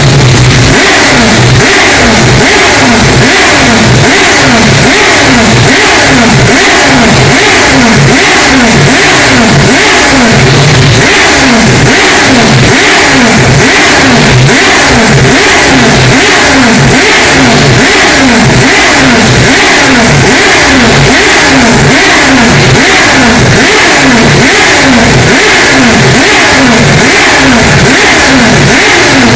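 Mazda 787B's R26B four-rotor rotary engine revving hard, its pitch rising and falling about twice a second. The audio is pinned at full volume and heavily distorted.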